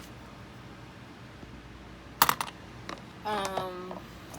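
A few sharp clicks and taps of small hard parts as the broken jewelry box is handled, then about three seconds in a brief steady hum-like voiced tone lasting about half a second.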